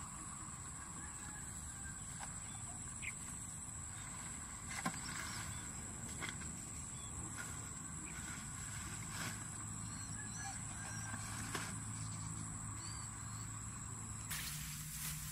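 Tall grass rustling and snapping as a person pushes through it, over a steady high-pitched insect drone. The rustle grows louder and closer near the end as she crouches in the grass.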